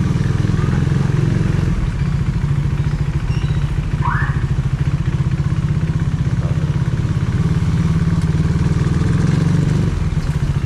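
Motorcycle engine running steadily at low speed, a low pulsing engine note. There is a brief rising squeak about four seconds in.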